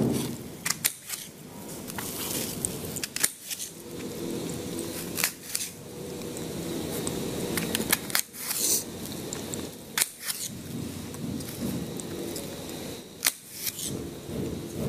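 Knife tapping and clicking against a plate as vegetables are cut by hand, a dozen or so sharp irregular clicks over a steady low room hum.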